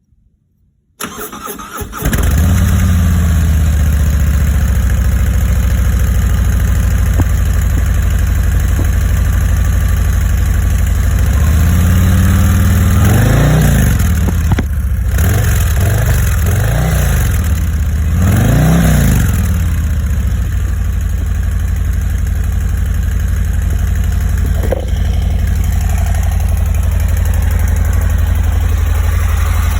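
2022 Harley-Davidson Street Glide ST's Milwaukee-Eight 117 V-twin on its stock exhaust, cranked on the starter and catching about two seconds in, then idling. In the middle the throttle is blipped about five times, the revs rising and falling quickly each time, before it settles back to a steady idle.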